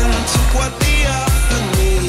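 Pop music with a steady, driving beat of about two drum hits a second.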